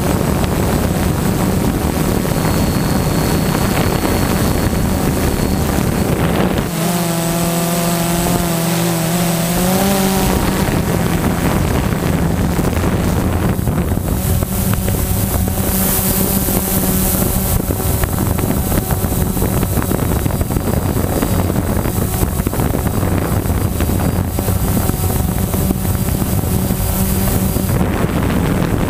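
DJI Phantom quadcopter's four electric motors and propellers running in flight, a steady buzzing hum heard close up from its onboard camera, with wind on the microphone. About seven seconds in the motor pitch shifts for about three seconds, bending upward at the end, then settles back to a steady hum.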